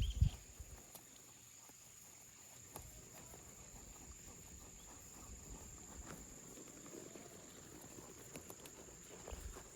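Steady high-pitched insect chorus of crickets in the background, with a low thump just after the start and a few soft knocks near the end.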